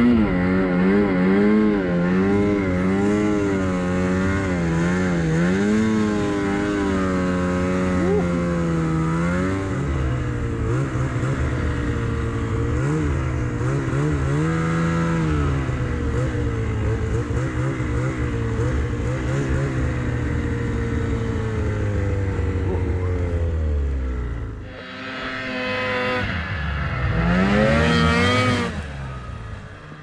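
Snowmobile engine running under load up a hill, its pitch rising and falling as the throttle is worked. Its revs fall away about twenty-five seconds in, then climb steeply again near the end.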